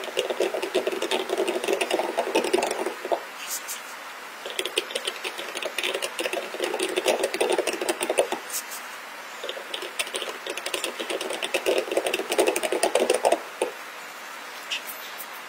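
Steel seal-carving knife cutting into a stone seal face: a rapid, scratchy chipping in three bouts of a few seconds each, with short pauses between.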